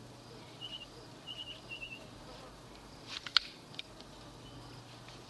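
Quiet jungle ambience: short, high chirps repeated in little groups of three or four, over a low steady hum. A few sharp clicks come about three seconds in, one of them a louder tap.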